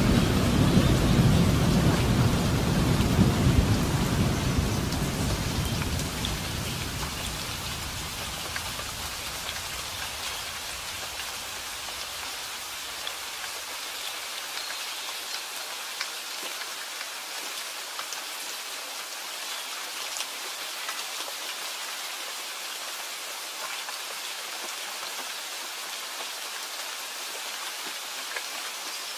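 Steady rain falling, with a low rumble of thunder that fades away over the first several seconds. After that there is only the even hiss of the rain, with scattered drop ticks.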